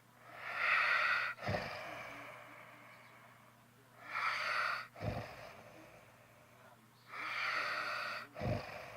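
Snoring: three breaths about three and a half seconds apart, each a hissing breath about a second long that ends in a short, low snort.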